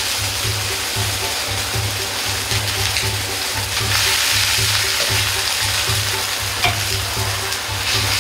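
Napa cabbage sizzling in a hot wok while a metal ladle stirs it, with a regular low beat underneath.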